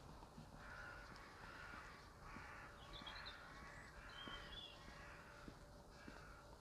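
Crows cawing: a run of harsh caws over several seconds, with a few faint higher chirps from other birds among them.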